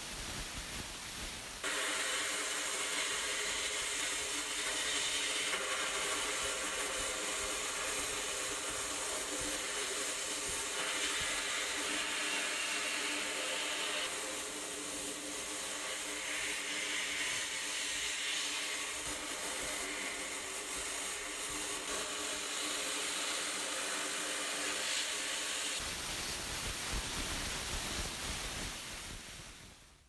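Sandblasting cabinet's air-fed blast gun hissing steadily as it blasts paint off tin toy parts, the hiss swelling and easing as the spray moves, over a steady hum. It starts about two seconds in and fades out near the end.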